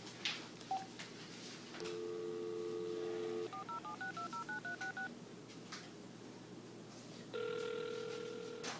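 Telephone handset: a couple of clicks in the first second, then a dial tone for about a second and a half. Then about ten quick keypad tones as a number is dialed. Near the end another steady tone sounds on the line for about a second.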